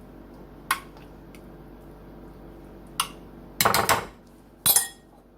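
Utensil clinking against a baking dish: a few single sharp clicks, then two short clattering bursts near the end.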